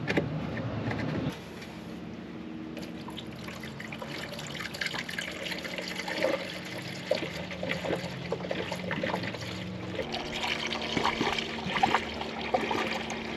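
Premixed antifreeze coolant being poured through a funnel into the cooling system of a 1999 Ford Ranger 3.0L V6, refilling it after the leaking coolant elbow was replaced. The pour runs steadily, louder for about the first second.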